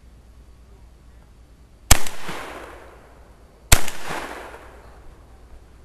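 Two shots from a Benelli shotgun about two seconds in, fired a little under two seconds apart, each followed by a ringing echo that dies away over about a second.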